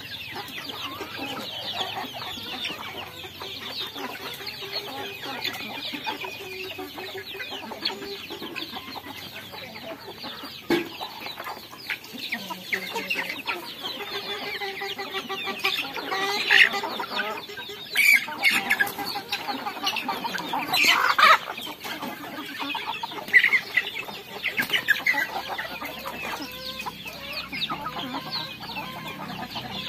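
A flock of young chickens clucking continuously while they feed, many short calls overlapping, with a few louder calls around the middle.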